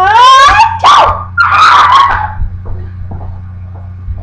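Puppy yelping and barking: a loud high call rising in pitch, then two shorter calls within the next two seconds, over a steady low hum.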